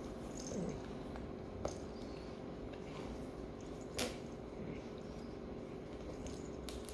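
A dog making faint low sounds, one of them falling in pitch, with a few sharp clicks about one and a half and four seconds in.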